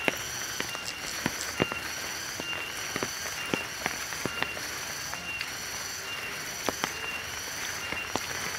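Footsteps on a wet, muddy dirt trail: irregular soft steps and scuffs, one or two a second, over a steady high chirring of insects with a short high note repeating a little more than once a second.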